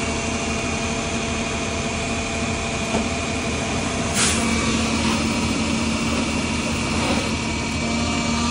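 Vac-Con vacuum/jetter unit's Deutz six-cylinder pony motor running steadily, with a steady high whine over the engine hum. A brief hiss about four seconds in.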